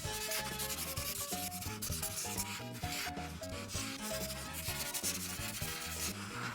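Ohuhu alcohol art marker tip rubbing over paper in quick back-and-forth coloring strokes, a fast run of scratchy rubs, with background music underneath.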